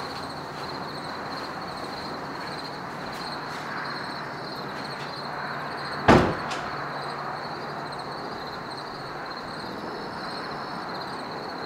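Steady outdoor background noise with a high-pitched buzz, broken about halfway through by a single sharp knock that dies away within half a second, followed by a fainter second knock.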